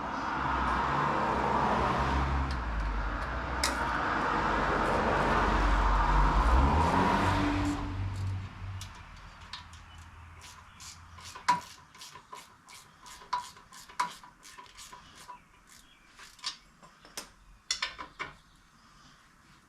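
A loud rumbling engine-like noise builds with a rising tone and fades out over the first eight seconds. Then come scattered light metallic clinks and taps, as of steel tools and parts being handled.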